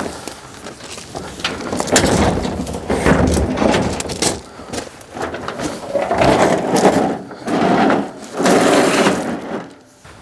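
Irregular scraping, rustling and knocking from an IBC tote being handled: its plastic bladder and metal cage rubbing and bumping as it is worked. There are several long scrapes with sharp knocks between them.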